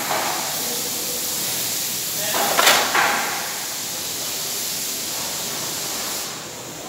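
Steady hissing background noise of a working fabrication workshop, with a brief louder burst of noise a little under three seconds in.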